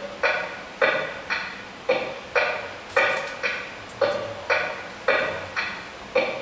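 A single ringing note struck over and over, about twice a second in an even pulse, each strike dying away before the next. A couple of brief high clinks come in about three seconds in.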